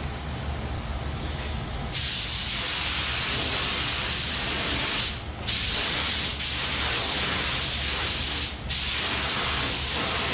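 Air-fed paint spray gun hissing as a light coat is sprayed on, starting about two seconds in and cut twice briefly as the trigger is let off. A steady low hum runs underneath.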